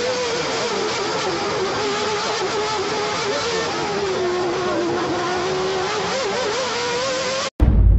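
Onboard recording of a McLaren-Honda Formula 1 car's engine running at high revs, the note dipping and rising again as the car takes a slow corner. It cuts off abruptly near the end and a loud deep boom hits.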